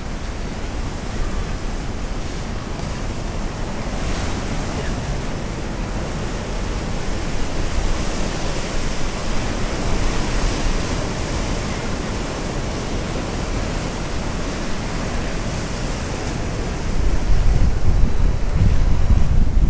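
Sea surf washing against the breakwater's concrete tetrapods, mixed with wind buffeting the microphone. The wind gets heavier near the end.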